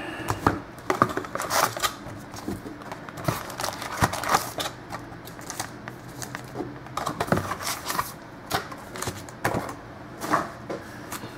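Irregular clicks, taps and short rustles of cardboard and paper trading-card packaging being handled, one every half second to a second or so.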